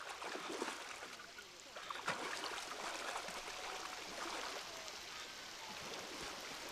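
River water splashing and trickling around men wading through a shallow stream, with irregular small splashes over a steady watery hiss.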